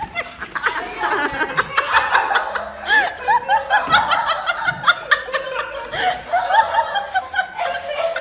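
People laughing: high-pitched giggling and chuckling in quick repeated bursts.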